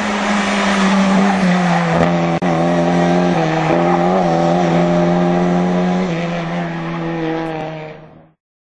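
Rally car engine running hard at high revs, heard from inside the car, with a brief break in the engine note about two and a half seconds in, then fading away near the end.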